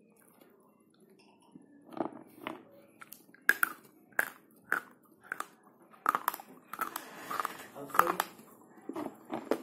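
Slate pencil being bitten and chewed: a series of sharp, dry crunches starting about two seconds in, coming faster after about six seconds.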